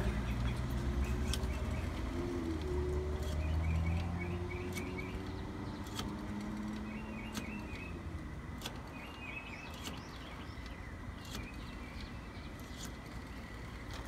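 A rotary payphone dial being wound round and let spin back, digit after digit, with sharp clicks every second or two. Birds chirp throughout, and a vehicle engine hums low during the first few seconds.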